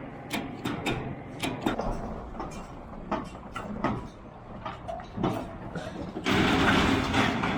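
Repeated knocks and clanks of a calf shelter being handled and moved with a loader, over a running machine, with a loud scraping rush lasting about a second near the end.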